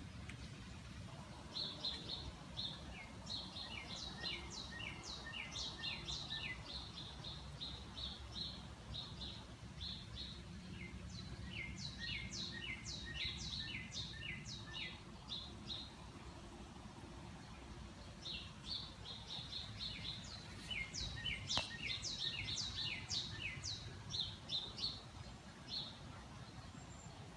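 Songbird chirping in rapid series of short, high chirps and quick falling notes, in three bouts, over a low steady background rumble.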